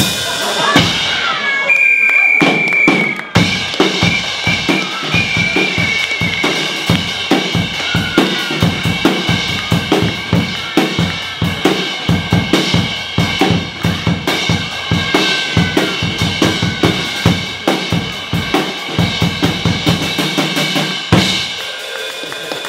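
Live drumming on bass drum and snare, rapid irregular strokes with a held high tone over them, accompanying the performance; the drumming stops shortly before the end.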